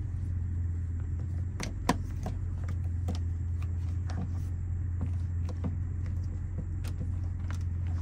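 Small plastic clicks and scrapes of an AC charging cable plug being worked into the input socket of an EdoStory NBoost 1500 portable power station, one sharper click about two seconds in, over a steady low hum.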